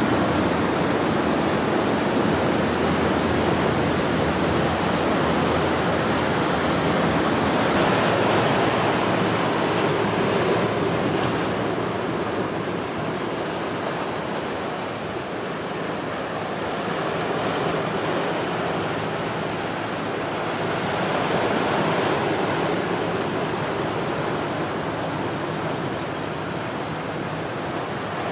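Ocean surf after a storm, breaking and washing over rocks: a steady rush that swells as each wave comes in and eases between them.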